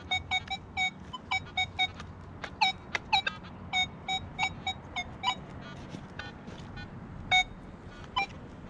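Nokta Legend metal detector giving target tones as the coil sweeps: a rapid, irregular run of short beeps, some low-pitched and some high-pitched, several a second.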